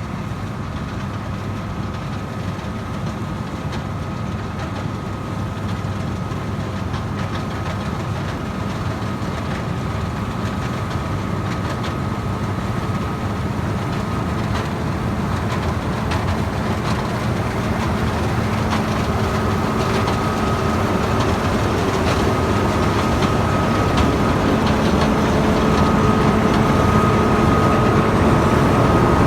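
Farm tractor engine running steadily while pulling a grain wagon, with a steady whine over the engine and the sound slowly growing louder.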